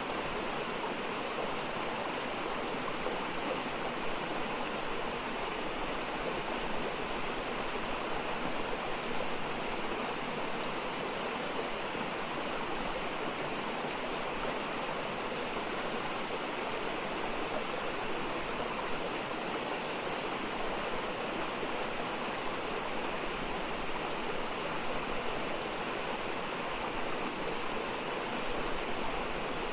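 Mountain valley stream running, a steady, unbroken sound of flowing water.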